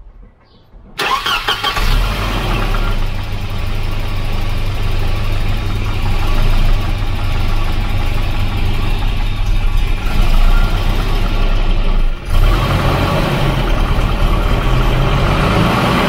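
Volvo B230 red-block inline-four engine starting about a second in and settling into a steady idle, with a knocking that the owner puts down to piston slap.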